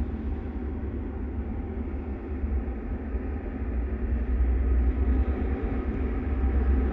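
Steady low machine rumble with no clear rhythm, growing louder about four seconds in.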